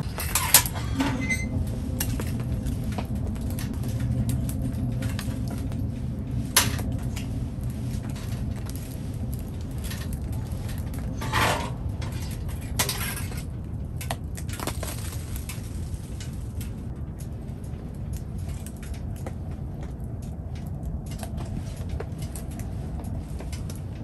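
A small wood-burning tent stove being tended by hand: a few scattered sharp clunks and knocks of metal and wood, about five in all and mostly in the first fifteen seconds, over a steady low rumble.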